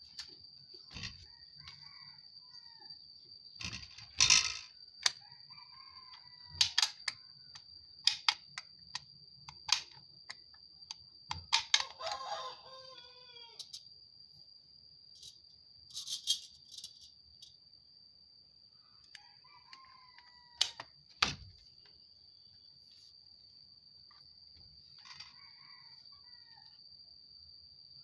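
A rooster crows once, a descending call of about a second and a half near the middle. Around it come sharp clicks and clunks from the air rifle being handled, the loudest about four seconds in and again near twenty-one seconds, over a steady high-pitched whine. Fainter short bird calls are heard here and there.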